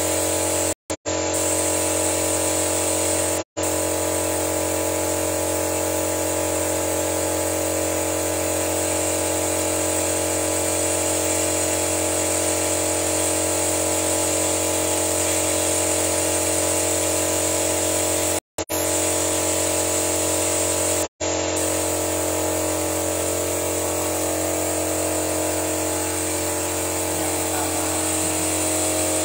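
Steady machine hum with a high hiss from the engine bay during an engine carbon-cleaning flush, cut by four brief dropouts.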